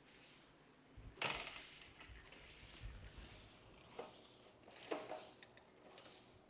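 Manual wheelchair being rolled over a tile floor: faint, irregular rattles, clicks and knocks from its frame and wheels.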